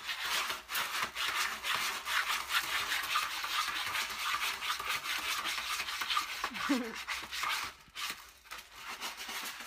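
A cat's paws scratching and raking pellet cat litter in a plastic litter tray, with quick, repeated scraping strokes. The scraping thins out to a few scattered strokes after about seven and a half seconds.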